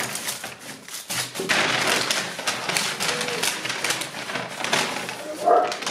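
Brown paper carrier bag crinkling and rustling as a hand rummages inside it, a dense run of crackles and rustles.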